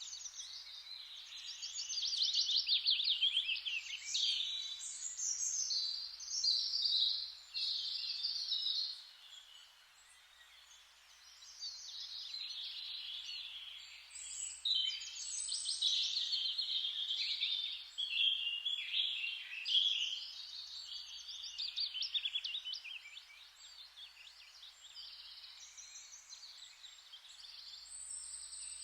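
Forest ambience: many songbirds chirping and trilling over a steady hiss of rustling noise, with a brief lull in the birdsong about a third of the way through.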